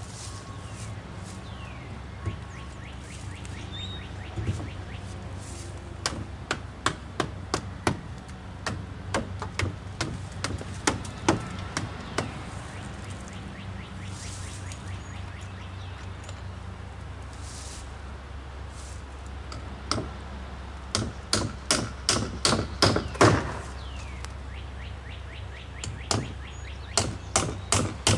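Hammer driving nails into wooden fence boards: runs of quick, sharp strikes, about three or four a second, with pauses between runs, the fastest runs in the second half.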